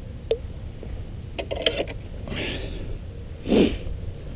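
A few sharp clicks and short rustles of gear being handled, over a steady low hum.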